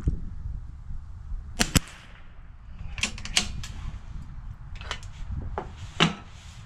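Sharp clicks and knocks of a bolt-action rifle being handled at a wooden shooting bench. The loudest is a sharp double click about two seconds in, with more clicks after it and a knock near the end.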